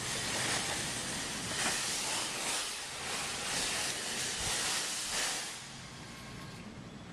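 Steady hissing noise that swells and eases, dropping off somewhat about five and a half seconds in.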